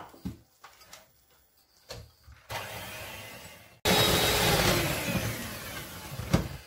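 Electric hand mixer beating eggs and sugar in a glass bowl: its motor starts about two and a half seconds in, runs louder from about four seconds in, and stops near the end with a knock.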